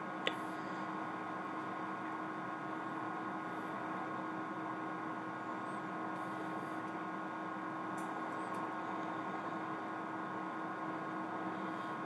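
Steady electrical hum, several even tones held over a low hiss, with a single sharp click a moment in.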